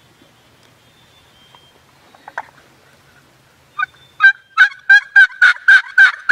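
Wild turkey yelping: a loud run of about nine evenly spaced yelps, some three a second, starting a little under four seconds in after near quiet.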